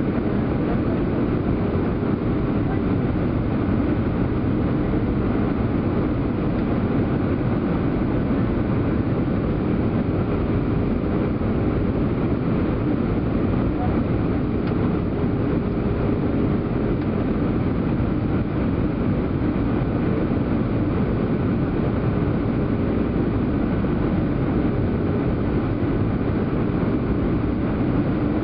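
Steady cabin noise of an Airbus A320 in descent, heard at a seat by the engine: an even rush of engine and airflow noise with a faint steady hum.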